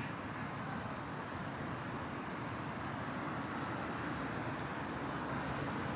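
Steady city traffic noise: a continuous hum of distant cars, with no single vehicle standing out.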